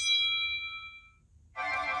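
iPhone 11 Pro tones played one after another: a bell-like chime struck once and fading out over about a second, then, about a second and a half in, a denser buzzy tone of many pitches that cuts off after less than a second.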